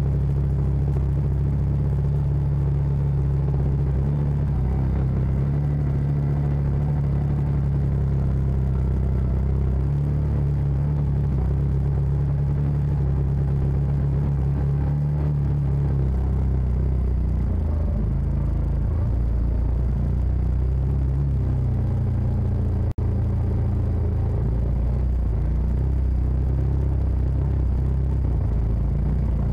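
Engine of a CF Moto side-by-side UTV running steadily as it drives along a trail. The engine note drops lower about halfway through, and the sound cuts out for an instant a little later.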